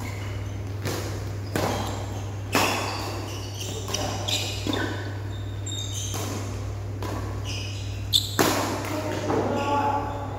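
Badminton doubles rally: rackets striking the shuttlecock with sharp cracks every second or so, the hardest about two and a half seconds in and again about eight seconds in, with short squeaks of shoes on the court mat between hits. A steady low hum runs underneath.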